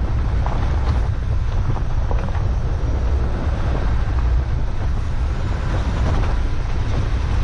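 Porsche Cayenne Turbo driving on a loose gravel track, heard from a camera mounted by the front wheel: heavy wind rumble on the microphone over a steady rush of tyre noise, with scattered clicks of stones and gravel.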